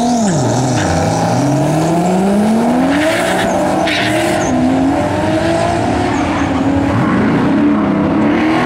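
Toyota Supra's turbocharged 2JZ straight-six launching hard off the drag-strip start line: the held revs drop sharply as it bogs off the line, then climb through first gear, with gear changes about three and five seconds in, over the second car's engine.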